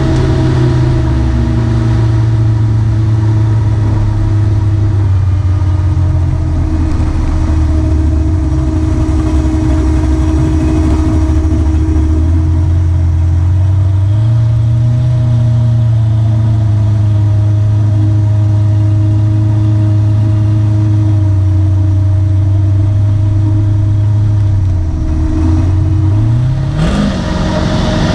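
A truck's engine running through its dual exhaust at a steady idle. The idle steps up for a stretch partway through, then settles, and near the end there is one quick rev that rises and falls.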